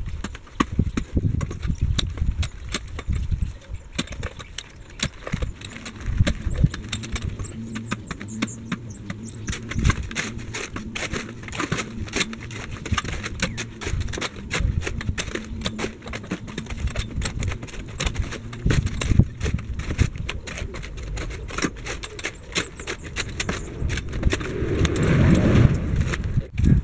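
A steel post hole digger and spade working soil: a fast, irregular run of knocks and scraping clicks as the blades are driven into the ground and earth is lifted out.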